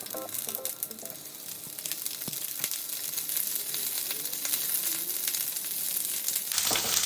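Fennel and boiled potatoes frying in olive oil in a skillet: a steady sizzle with many crackling pops that grows louder. Near the end it turns suddenly louder and hissier.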